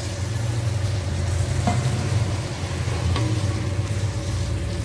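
Wooden spatula stirring cauliflower masala in a metal kadai, with the sizzle of frying and a couple of light knocks of the spatula on the pan. A steady low hum runs underneath.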